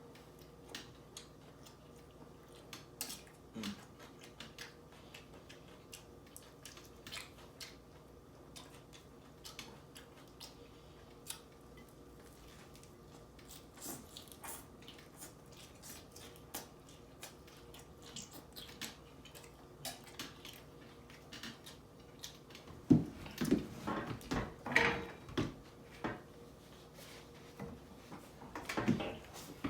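Close-up chewing and lip smacking from eating a double cheeseburger: a string of small wet clicks, louder and busier for a few seconds near the end.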